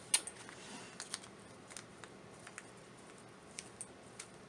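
Faint scattered clicks and light rustling of small plastic bags of beads and metal findings being handled, with a sharper click just after the start.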